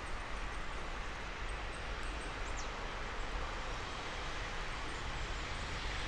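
Steady rush of a forest stream, an even hiss of running water.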